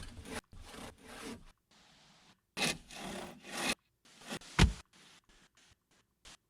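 Hand tool scraping on wood in a few strokes of about a second each, then a single heavy knock about four and a half seconds in.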